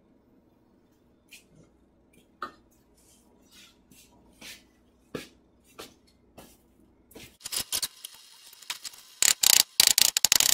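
Hammer striking the sword blade on the anvil while the tip is reshaped: scattered light taps at first, then a fast run of loud strikes over the last few seconds.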